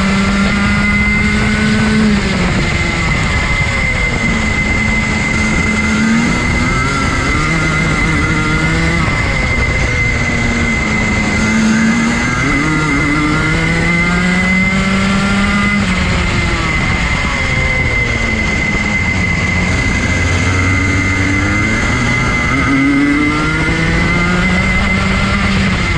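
Rotax Junior 125cc single-cylinder two-stroke kart engine heard onboard at racing speed. It revs up in long rising sweeps and its pitch falls off sharply as the throttle is lifted for corners, about five times, with a steady high whine alongside.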